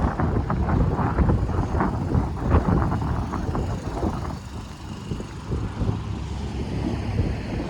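Street traffic going by, with wind gusting on the microphone in an uneven low rumble that eases a little about halfway through.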